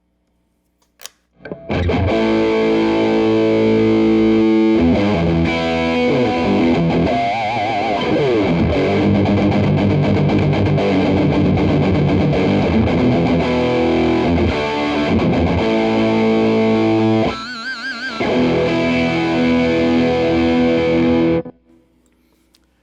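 Electric guitar played through a Donner Morpher distortion pedal with the gain turned all the way up: very gritty, dirty, heavily saturated high-gain tone with pinch harmonics and wavering vibrato bends. The playing starts about a second and a half in and stops about a second before the end.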